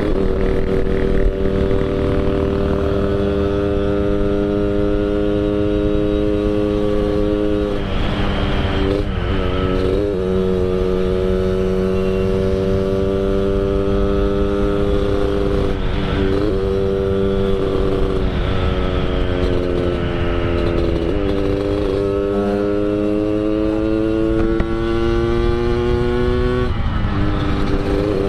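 Yamaha RX King two-stroke single-cylinder motorcycle engine with a Medan-style under-belly exhaust, ridden on the road. Its steady note creeps up in pitch and drops back sharply about five times.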